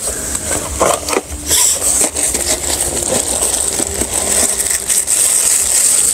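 Rustling and a few light knocks as offerings are handled and taken out of a bag, over a steady high-pitched drone.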